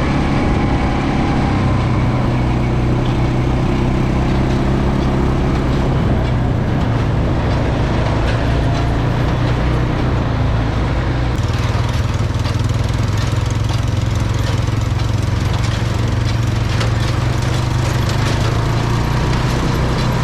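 Engine running steadily with a low, even hum, most likely a tractor's. About eleven seconds in, a brighter hiss joins it.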